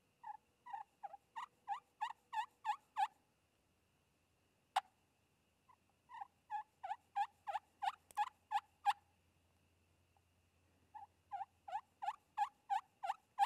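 Pot-style friction turkey call worked with a wooden striker, imitating a wild turkey hen's soft tree yelps, the quiet roost talk of a hen waking on the limb. Three runs of about eight short yelps, each note breaking from high to low, with a single sharp click between the first two runs.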